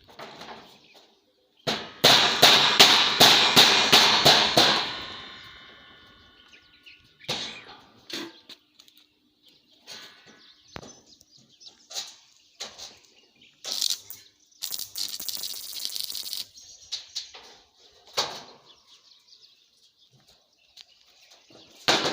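Metal workshop noises: about two seconds in, a loud rapid rattle of metal strikes, about eight a second, leaves the metal ringing for a second or so. Scattered clicks and knocks follow, with a brief hiss a little past the middle and another loud burst right at the end.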